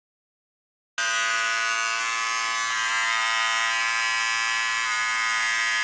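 Silence for about a second, then an electric beard trimmer comes in, buzzing steadily as it cuts beard hair.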